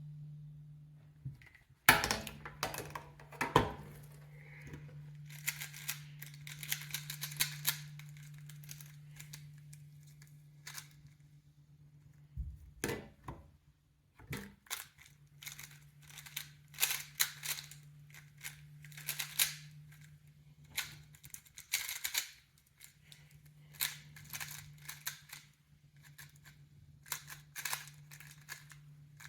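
Tornado V3 3x3 speedcube being turned fast by hand: rapid plastic clicking and clacking of the layers in quick flurries, with a few louder knocks as the cube is handled.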